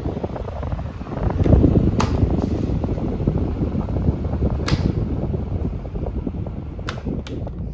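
Portable electric fan running, its airflow buffeting the microphone in a steady rough rush, with a few sharp clicks along the way.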